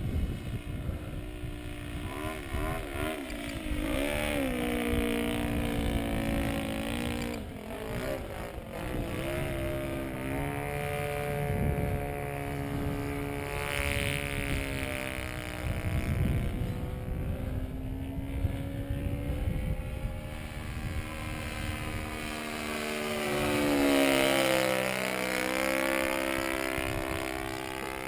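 Model aircraft's YS 120 glow engine on a straight pipe, flying an RC Extra 260 around overhead. The pitch rises and falls with throttle and passes, and it grows loudest on two close passes, about halfway and near the end. A low wind rumble sits on the microphone underneath.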